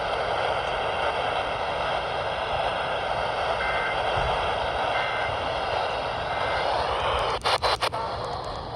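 Weather radio receiver hissing with heavy static from weak reception; about seven seconds in, the static cuts in and out rapidly.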